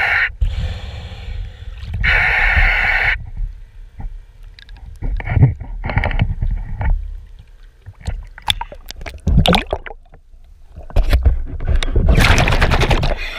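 Water sloshing and gurgling around a camera at the waterline, with bursts of bubbling and splashing every few seconds, loudest near the end as the camera goes underwater.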